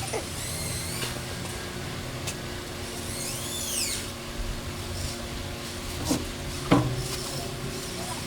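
Hand-tool work on the excavator: a few sharp metal knocks, the loudest a little before the seven-second mark, over a steady low hum, with a brief high chirp about three seconds in.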